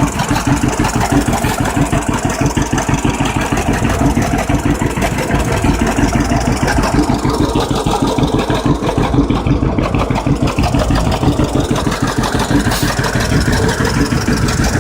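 1951 John Deere B tractor's two-cylinder engine idling steadily, with an even run of firing pulses.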